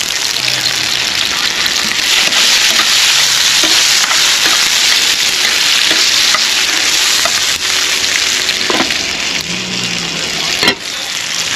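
Sliced onions and sweet peppers sizzling in hot oil in a frying pan, a steady loud hiss, with light scrapes as they are stirred. A single sharp click near the end.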